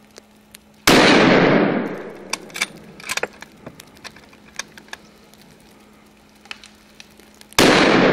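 Two hunting-rifle shots about seven seconds apart, each a sharp crack whose echo rolls off through the forest over about a second.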